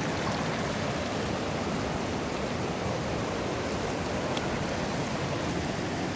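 Steady rush of a rocky mountain river running through white-water rapids over boulders.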